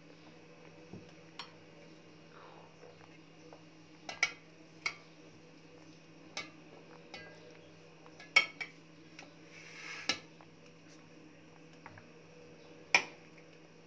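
A metal spoon clinking and tapping against a glass bowl and a metal tray as chocolate-coated biscuit pieces are spooned across, about ten separate sharp clinks at uneven intervals. There is a short scrape about ten seconds in, and a faint steady hum runs underneath.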